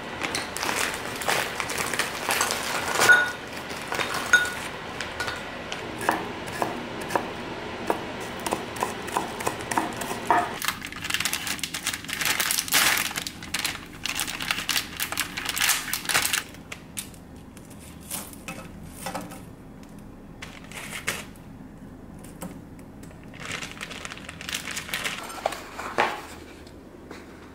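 Plastic food packaging crinkling and rustling, with small clinks and taps of kitchen handling. The rustling is dense for the first half and thins out after about 16 seconds into occasional light clicks.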